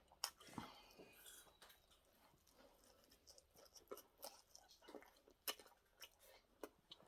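Faint chewing: a person eating chicken and rice close to the microphone, with soft irregular mouth clicks and small crunches.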